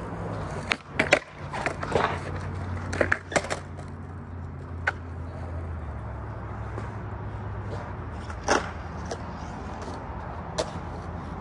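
Skateboard rolling on concrete: a steady low rumble of the wheels, broken by a series of sharp clacks of the board striking the ground, several in the first few seconds and a few more spaced out later.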